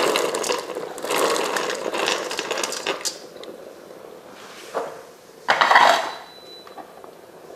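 Cooked bean kernels tipped from a stainless steel colander into a steel cooking pot, the colander clattering and scraping against the pot for about three seconds. About five and a half seconds in comes a single louder clatter.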